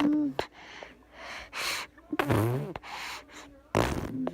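A baby's breathy gasps and short voiced squeals between raspberry-blowing, with a loud breathy burst near the end.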